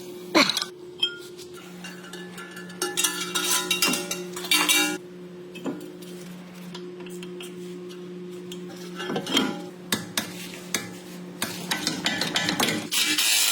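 Metal tools and parts clinking and scraping against each other in a series of sharp, irregular metallic strikes, the sound of hand work on a car's front wheel hub during reassembly.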